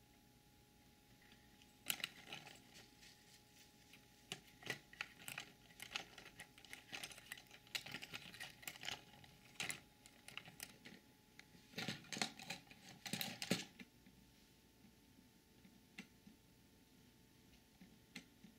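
A cat pawing and mouthing a small plastic dancing-sunflower toy: irregular light clicks, taps and crackles of plastic, starting about two seconds in and thinning out to a few stray ticks over the last few seconds.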